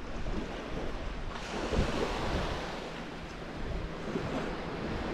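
Small waves washing up and breaking on a sandy shore, one surging in louder about a second and a half in, with wind rumbling on the microphone.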